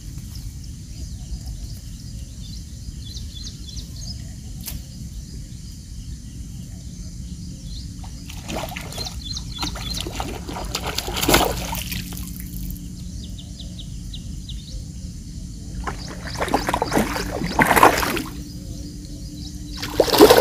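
Hooked mrigal carp splashing at the water's surface while it is pulled in on a hand line. The splashing comes in several bursts, the loudest near the end.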